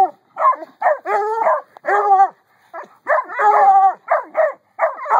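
Two coonhounds, a Treeing Walker pup and a Bluetick, baying at a raccoon held in a wire roll cage: a fast run of short barks whose pitch bends up and down, with a longer drawn-out bay about three seconds in.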